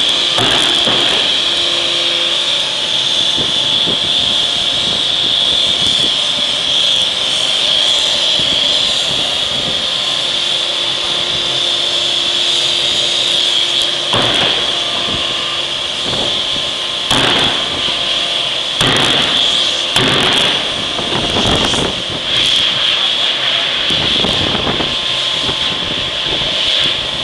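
A 3-ton impressed-die forging hammer strikes a glowing crankshaft forging about half a dozen times, the heavy blows coming a second or two apart in the second half. Under the blows runs a steady high-pitched hiss from the machinery.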